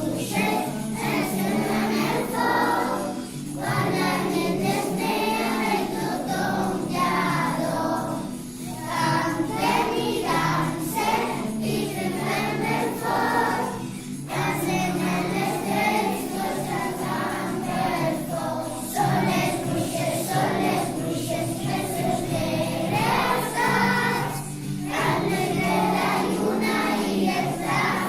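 A song sung by a group of voices, likely children, with jingle-bell or tambourine accompaniment.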